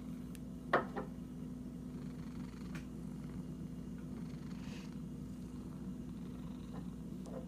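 Domestic cat purring steadily while being scratched. A sharp click comes a little under a second in, with a softer one just after.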